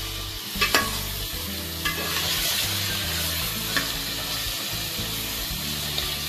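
Beef pieces sizzling as they fry in hot oil in a metal pot. A metal ladle stirs them, clinking sharply against the pot about four times.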